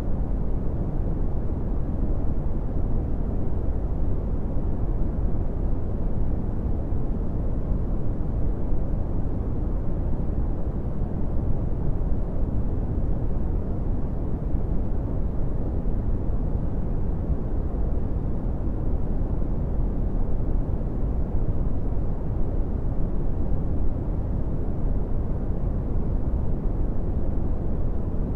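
Brown noise: a steady, deep rushing hiss weighted toward the low end, unchanging throughout.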